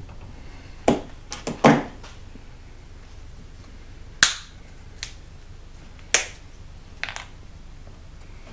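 Black plastic shim being snapped and broken down to size by hand: a series of sharp cracks, three or four in quick succession between one and two seconds in, then single snaps about a second apart.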